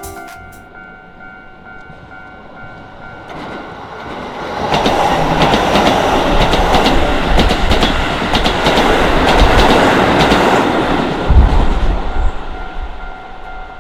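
Keisei Main Line train passing at speed over a level crossing. Its rush builds from about four seconds in, stays loud with wheels clacking over rail joints, gives a heavy low thump near the end of the pass, then fades. The crossing's electronic bell rings steadily underneath, heard plainly before the train arrives and again as it goes.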